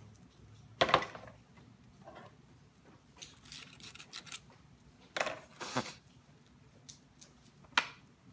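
A notching tool clicking against a stone point during flintknapping: a few sharp, loud clicks, about a second in, around five seconds and near the end, with rubbing and rustling of the stone and leather pad in between.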